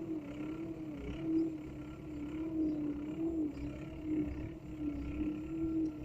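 A small motor whining steadily, its pitch wavering slightly up and down about once a second.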